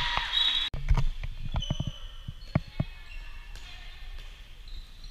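A handball bouncing on a wooden gym floor during play: a quick run of thuds, then a few single ones, with short shoe squeaks on the court. Loud voices fill the opening moment and cut off abruptly under a second in.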